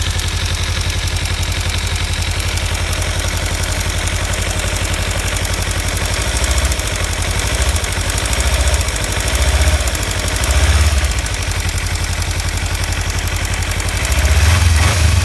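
2015 Kawasaki Ninja 300's parallel-twin engine running near idle with a rapid ticking rattle, its level rising briefly a few times, most strongly near the end. The tick comes on once the engine is warm; the owner suspects a malfunctioning cam chain tensioner or loose exhaust header bolts.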